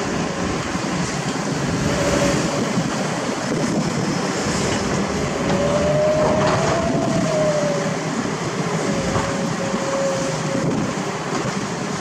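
Excavators running with a steady, dense rumble while working on broken road asphalt. About six seconds in, a drawn-out whining tone rises slightly and fades out a couple of seconds later, with shorter, weaker whines before and after.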